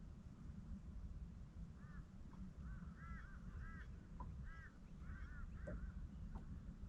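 Faint bird calls: short, arched calls in quick clusters of two or three, beginning about two seconds in and repeating until near the end, over a steady low rumble.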